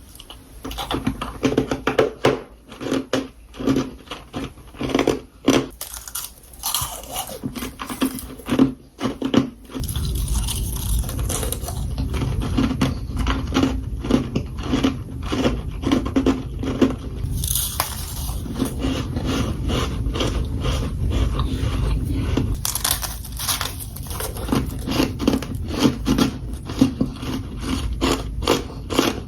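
Close-up biting, crunching and chewing of powdery freezer frost, in many quick crisp crackles. From about ten seconds in, a steady low rumble runs underneath.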